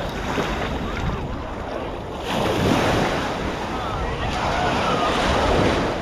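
Small surf washing up onto a sandy beach in a steady rush, swelling louder about two seconds in, with wind buffeting the microphone.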